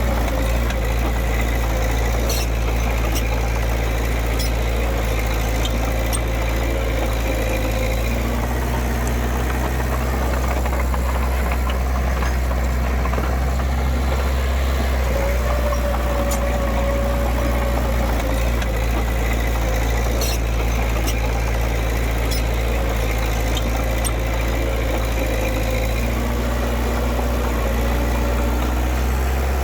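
Diesel engine of heavy earthmoving equipment running steadily with a deep, even hum, shifting slightly about eight seconds in and again near the end.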